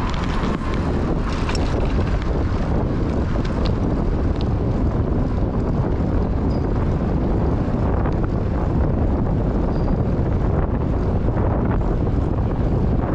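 Steady wind noise rushing over the microphone of a bicycle-riding camera, with no break in it.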